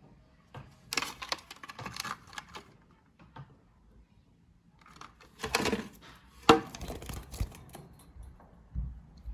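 Budgie chicks' claws and beaks scrabbling and clicking as they climb, in two bursts of rapid scratchy clicks, with one sharp loud click in the second burst.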